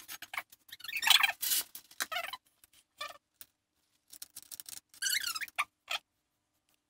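A scraper scratching and squeaking as it smooths wet cement mix over a plastic DVD case, in short strokes with gaps between them: a scratchy stroke about a second in and squeaks with a wavering pitch later on.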